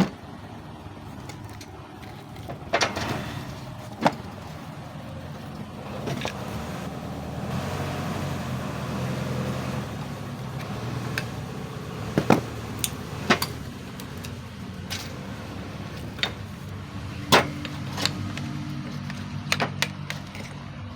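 Scattered metallic clicks and knocks as a 4HL1 piston and connecting rod are rocked by hand, the rod knocking on its worn small-end bushing, which has play. A steady low mechanical hum runs underneath.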